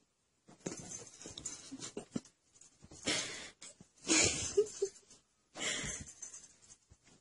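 A cat making four raspy, wheezy, breathy sounds, the loudest about four seconds in.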